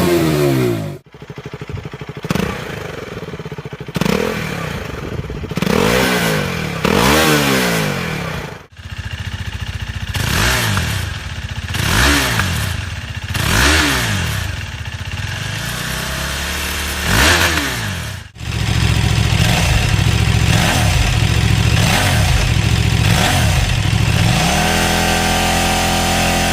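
Stock exhausts of KTM RC-series sport bikes revved one bike after another. There are repeated throttle blips that rise and fall in pitch, with abrupt cuts from one bike to the next three times. The last bike holds a steadier note that climbs near the end.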